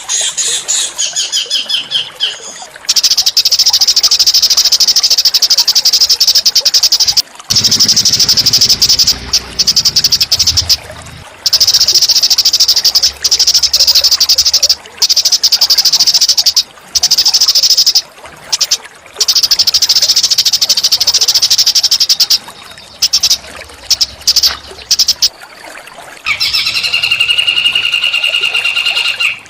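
Small songbird singing a loud, very fast buzzy trill in long repeated phrases with brief breaks. Lower, rapidly pulsed whistled notes come at the start and again near the end.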